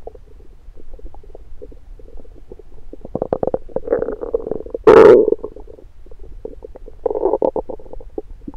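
Stomach and bowel gurgles heard through an electronic stethoscope on the belly while digesting breakfast. A steady run of small crackling pops is broken by bubbling bursts around three to four seconds in and again near seven seconds. One loud gurgle comes about five seconds in.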